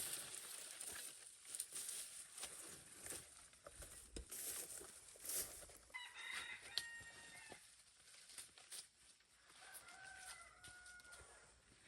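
A rooster crows faintly about six seconds in, and a second, lower call follows near the end, over scattered small clicks and rustles.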